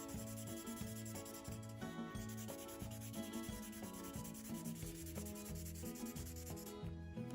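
Colouring on paper: a drawing medium scrubbed back and forth across the page makes a continuous scratchy rubbing that stops near the end. Background music with a repeating bass line plays under it.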